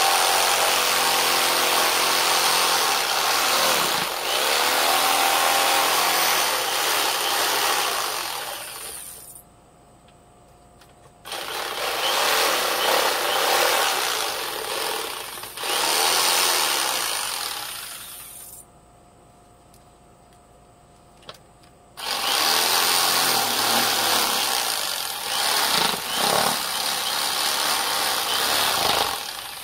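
Electric saw cutting through pine board, running in three stretches of about seven to nine seconds, stopping briefly between them.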